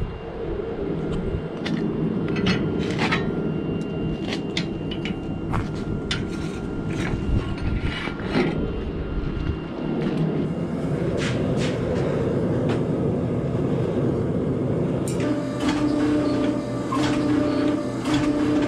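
Sharp metal clanks and knocks from a long steel billet being handled, over a steady low rumble. Near the end a steady hum joins in, swelling about once a second.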